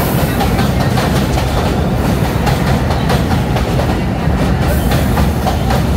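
R68 subway train running on the track, a steady heavy rumble with wheels clicking over the rail joints.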